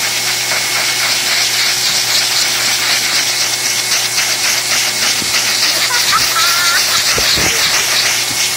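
Pet grooming blow dryer blasting a steady, loud hiss of air from its hose nozzle into a wet golden retriever's coat.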